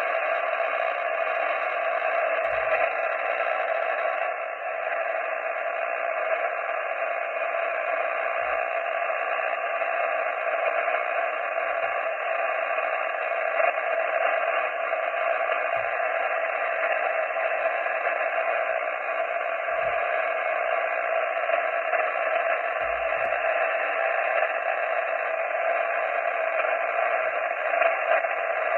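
Steady hiss of band noise from an amateur radio transceiver's speaker, cut off below and above a narrow voice-width band, as the receiver listens after a CQ call; no station comes through.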